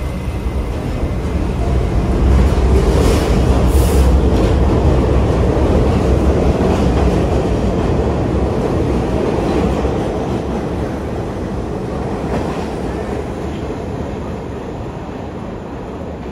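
New York City subway train rumbling through the station, with a couple of sharp wheel clacks over the rail joints. It grows to its loudest a few seconds in, then slowly fades.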